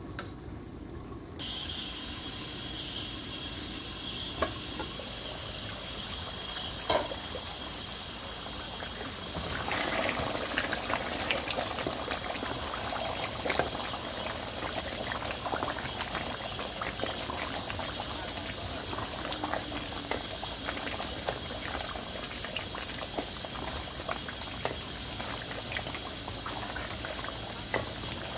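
Beef curry bubbling at a boil in a metal pot while a wooden spoon stirs through it, with a couple of sharp knocks of the spoon. The bubbling grows louder and more crackly about ten seconds in. At this stage the meat is cooked through.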